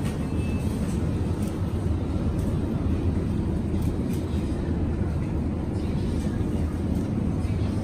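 Supermarket ambience: a steady low hum in front of refrigerated display shelves, with a faint murmur of voices.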